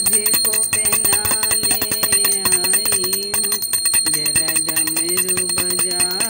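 Small puja hand bell rung rapidly and without pause, as at aarti, its high metallic ringing running on over a voice singing a devotional bhajan in long, slowly wavering notes, with a short break in the singing about two thirds of the way through.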